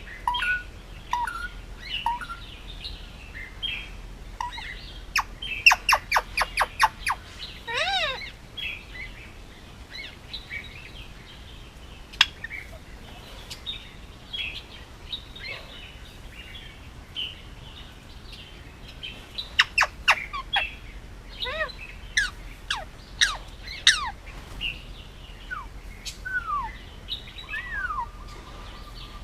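Male Indian ringneck parakeet chirping and calling, with scattered short chirps, a quick run of sharp calls about six seconds in, and another cluster of sharp calls and falling whistles past the middle.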